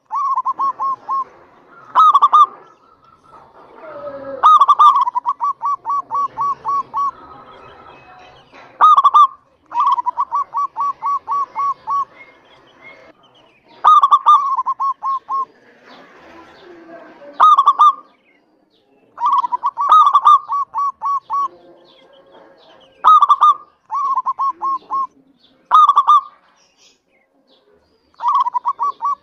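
Zebra dove (local perkutut) singing its repeated song: each phrase a loud opening note followed by a quick run of short, evenly spaced cooing notes, repeated every two to three seconds.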